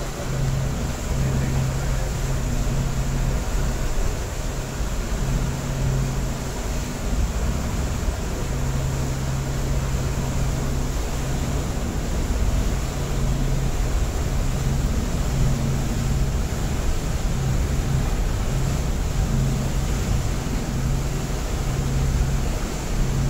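Passenger ferry underway, its engine running with a steady low hum that wavers in and out, over a constant rush of wind and water.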